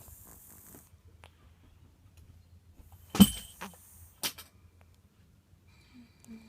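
Domestic cat snoring faintly in its sleep. A sharp knock about three seconds in, followed by a couple of lighter clicks, stands out loudest.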